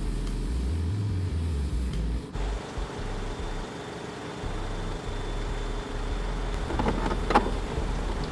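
Steady low rumble of a car engine idling, with a few faint clicks and rustles near the end.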